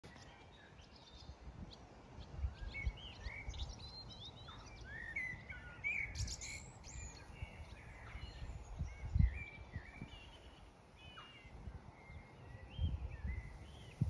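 Several birds singing, with short whistled and chirping notes throughout, over gusts of wind buffeting the microphone that come and go as low rumbles.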